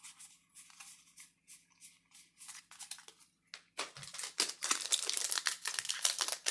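A Magic: The Gathering booster pack's foil wrapper being handled and torn open: soft, scattered rustling at first, then louder, continuous crinkling and tearing from about four seconds in.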